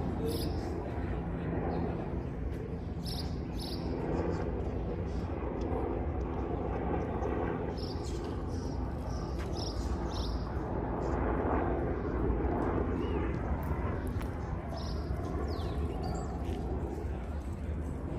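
Outdoor city-park ambience: a steady low rumble of distant traffic with a faint murmur of voices, and short high chirps now and then.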